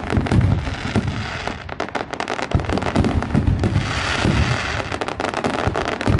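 A fireworks display going off overhead: many bangs and crackles in quick succession from bursting shells, with a low rumble between them.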